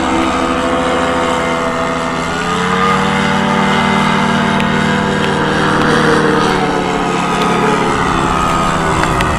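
Paramotor's two-stroke engine and propeller droning steadily as the powered paraglider flies overhead. Its pitch rises a little about two and a half seconds in and falls back near seven seconds.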